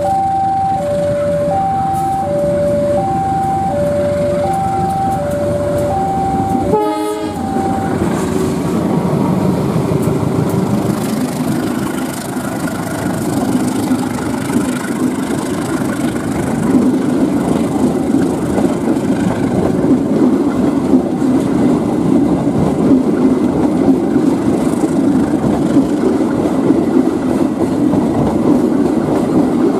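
A two-tone electronic warning alarm alternating between a higher and a lower tone, which stops abruptly about a quarter of the way in. Then an Indonesian train passes close by, its wheels clacking and rumbling over the rails, getting louder from about 12 seconds in.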